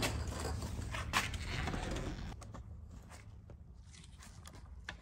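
Handling noise from a small-parts drawer being opened and searched: rustling with a few sharp clicks for about two seconds, then quieter scattered light clicks and rattles of small metal parts.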